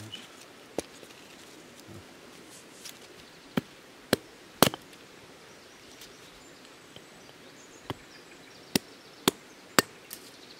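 Firewood being chopped into small pieces: about nine sharp, separate chops at an irregular pace, some in quick pairs about half a second apart.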